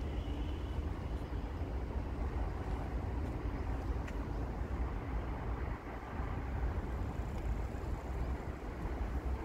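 Steady rumble of distant road traffic from an elevated roadway, mixed with low wind buffeting on the microphone.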